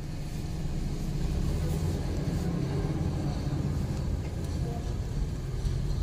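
Steady low rumble of a car's engine and tyres, heard from inside the cabin as the car rolls along.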